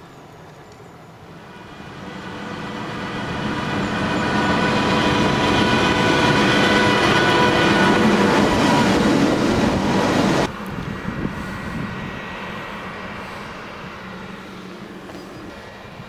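Fendt 5275 C combine harvester with a six-cylinder AGCO Sisu Power diesel driving past close by. The engine and a steady whine build up as it approaches, then cut off suddenly about ten seconds in. After that comes a quieter engine sound that slowly fades as the combine drives away.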